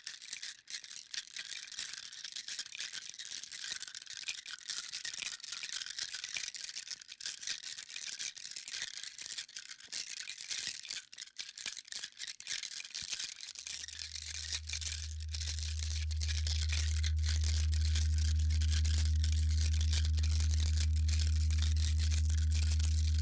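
Dense crackling hiss, full of small clicks and sitting high in pitch. About 14 s in, a steady low hum fades in beneath it, swells over a couple of seconds and then holds.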